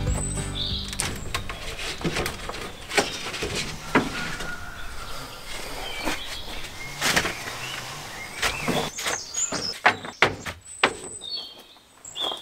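Thin wooden panels knocking and clattering against each other and the rack as they are pulled out and handled, a string of separate sharp knocks, with a few birds chirping.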